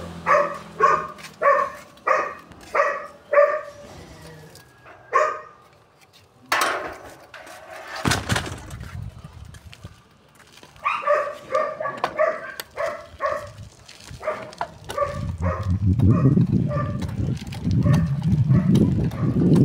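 A dog barking in quick runs of short barks, about two a second: a string at the start, a single bark a few seconds later, and another string midway. In the last few seconds a low rumbling noise builds up.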